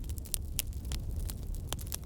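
Wood fire crackling in a fireplace: irregular sharp pops and snaps, about a dozen in two seconds, over a low steady rumble.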